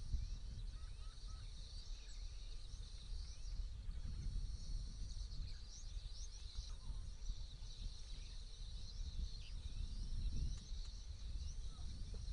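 Wild grassland and forest ambience: many small birds chirping and calling in quick, overlapping short notes, over a steady low rumble.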